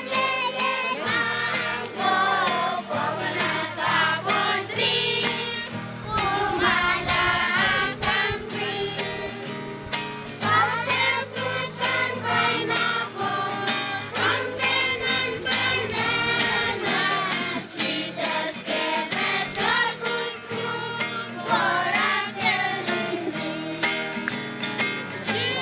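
Music: several voices singing together in a choir over a steady beat.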